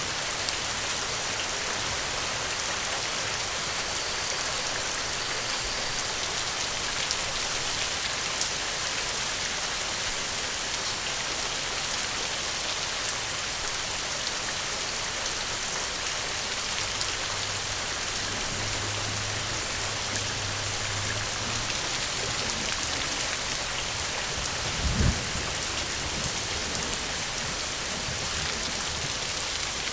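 Steady heavy rain falling, an even dense patter. Near the end there is a single brief low thud.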